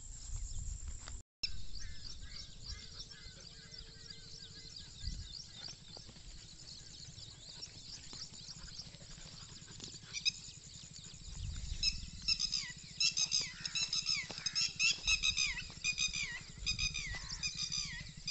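A quick run of short, high-pitched animal cries, each falling in pitch, comes thick and fast over the last six seconds or so, above a low rumble.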